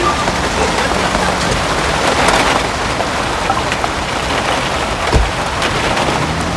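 Steady rain falling on cars and wet forecourt ground, with a single dull thump about five seconds in.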